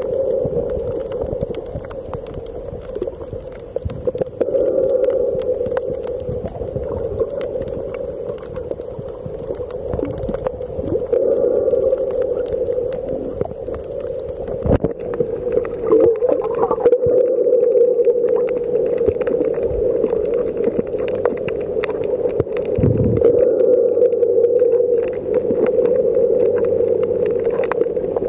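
Underwater ambience heard through a submerged camera: a steady muffled hum with many scattered clicks and crackles.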